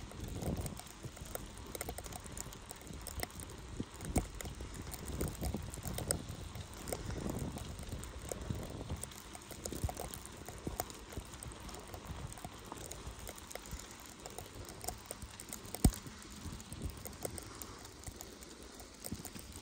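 Bicycle being ridden through snow: a steady low rumble with irregular knocks and rattles. One sharp click late on is the loudest sound.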